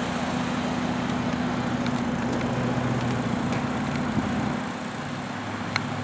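Steady low mechanical hum made of a few held tones, dropping slightly in level and pitch about four and a half seconds in.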